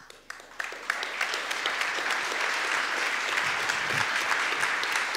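Audience applauding. A few claps come in first, then within about a second it fills out into steady, dense applause.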